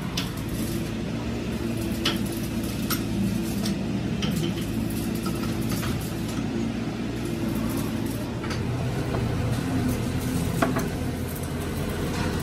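Sharp metal clicks and clinks, irregularly spaced, from a chuck key and the jaws of a four-jaw lathe chuck as they are tightened on a steel drive shaft tube. A steady low machine hum runs underneath.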